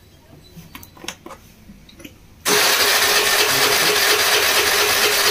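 Mahindra Gusto scooter's electric starter cranking the engine, a sudden steady whir lasting about three seconds from about two and a half seconds in. It is a spark check of the substitute Honda CDI, and the engine does not fire. Before it, a few faint clicks.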